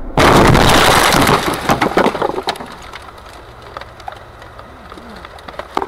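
Car crash heard from inside the car: a sudden loud impact a fraction of a second in, about two seconds of crunching and crashing, then scattered crackles and rattles as it dies away.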